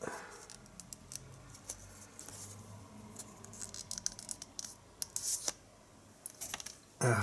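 Stiff card-stock art cards being handled and shuffled between the fingers: light scraping, rustling and scattered small clicks of card against card and against the steelbook case. A brief louder sound comes right at the end.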